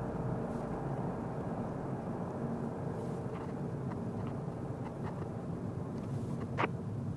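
Car cabin noise while coasting downhill: a steady low rumble of tyres and drivetrain, with a few faint clicks and one sharper click near the end.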